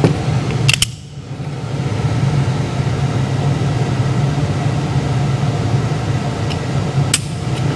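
Steady low mechanical hum, with two sharp clicks, one about a second in and one near the end.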